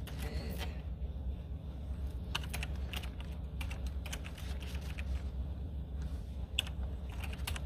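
Typing on a computer keyboard: irregular clusters of key clicks over a steady low hum.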